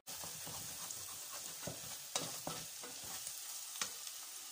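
Chopped onion frying in oil in a stainless steel pot, sizzling steadily, while a spatula stirs it, with a few short scrapes against the pot.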